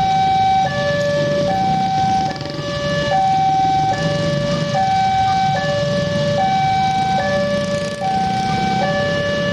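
Railway level-crossing warning alarm: an electronic two-tone signal alternating steadily between a higher and a lower note, each held a little over half a second. It is the signal that a train is approaching the crossing. The low rumble of waiting motorcycle traffic runs underneath.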